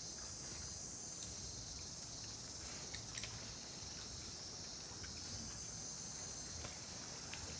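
Steady, high-pitched chorus of insects, with a few faint short clicks.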